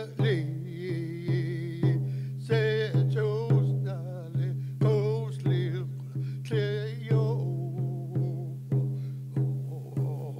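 An elder singing a traditional First Nations song with a wavering, held voice, keeping time on a hand-held frame drum struck about twice a second, each beat ringing low.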